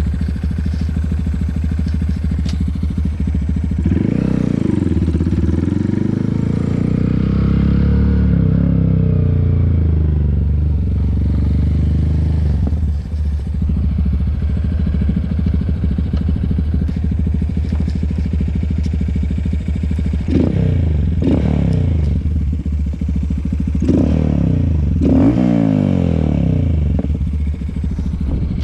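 Honda Grom's single-cylinder engine running, revved up and let back down repeatedly, once about four seconds in and again in several pulls from about twenty seconds, during wheelie attempts on a worn-out clutch.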